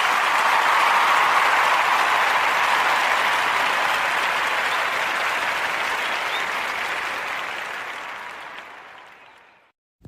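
Crowd applause, a dense steady clapping that fades out over the last few seconds.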